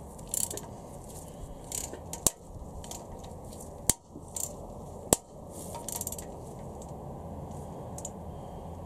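Click-type torque wrench working an ARP head-stud nut down on a Honda B18C4 cylinder head: short rasps of the ratchet between pulls, with sharp clicks about two, four and five seconds in, as the nuts are pulled up to torque in the tightening sequence.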